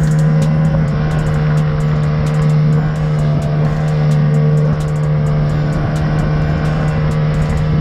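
Yamaha 25 hp four-stroke outboard running at a steady speed, pushing a small inflatable boat across the water, with wind and rushing water over it.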